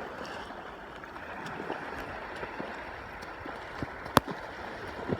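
Steady rushing noise, like running water, with scattered small clicks and one sharp click about four seconds in.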